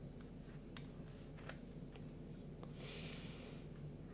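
Faint handling of cardboard 3D puzzle pieces: a few light ticks, then a short scraping rustle near the end as a small piece is pressed against a folded cardboard wall.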